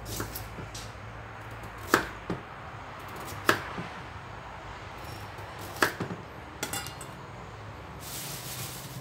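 Kitchen knife slicing carrot and cherry tomatoes, the blade knocking on a wooden chopping board: a handful of sharp knocks spaced irregularly a second or two apart.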